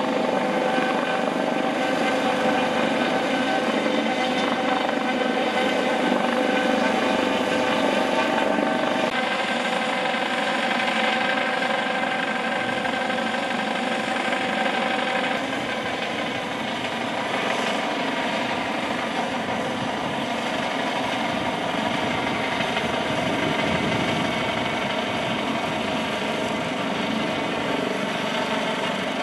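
Helicopter hovering overhead: the steady whine of its turbine engines over the rotor noise. The pitch of the whine shifts abruptly a couple of times.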